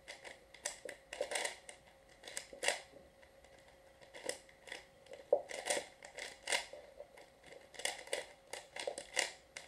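Plastic layers of a 4x4x6 cuboid twisty puzzle being turned by hand: irregular clusters of quick clicks and clacks as the turns slot into place, with a short pause about three seconds in.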